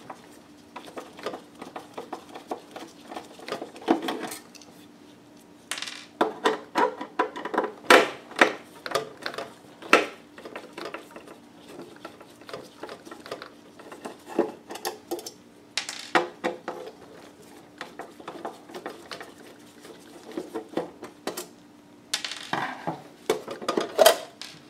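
Metal parts of a George Foreman Evolve grill being handled and worked apart by hand: irregular clicks, taps and light clatter of metal on metal, coming in clusters with short pauses between.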